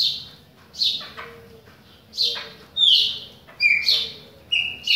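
Chopi blackbird (pássaro-preto) singing: a quick run of loud, clear whistled notes, several of them sliding down in pitch.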